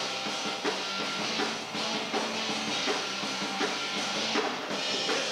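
Rock band playing live: drum kit keeping a steady beat under guitar and bass, recorded on a VHS camcorder's microphone.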